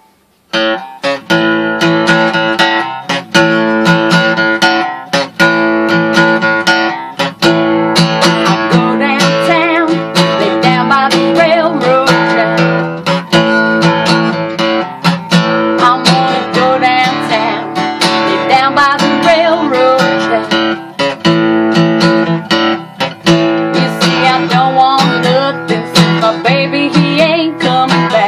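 Acoustic guitar strummed in a steady rhythm, starting just after a brief silence. A woman sings over it in stretches from about eight seconds in.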